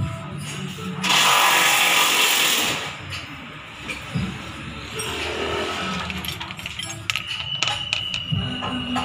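A loud hiss for about a second and a half, followed by scattered metallic clicks and knocks of tools and brake parts being handled.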